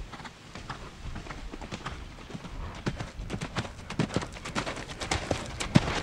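Hoofbeats of several horses galloping, a quick irregular patter of thuds that grows louder and denser about halfway through.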